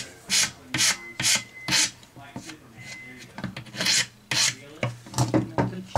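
Rough hand file rasping in quick back-and-forth strokes across the edge of a carbon fiber propeller, shaping down a glued filler repair on the tip. About two strokes a second, with a lull of about a second and a half in the middle before the strokes resume.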